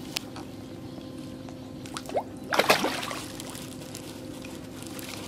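Large fish feeding at the surface on floating pellets: a couple of small drips and plops, then a splashing gulp about two and a half seconds in as a fish takes food and swirls the water.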